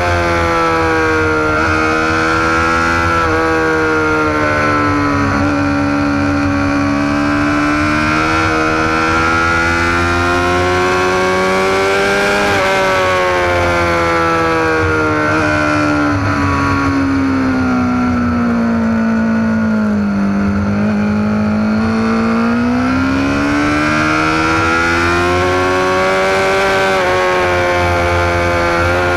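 Sport motorcycle engine heard from an onboard camera, running hard the whole time, its pitch sinking and climbing slowly with the throttle: it jumps up sharply about halfway through, drops to its lowest about two thirds of the way in, then rises again.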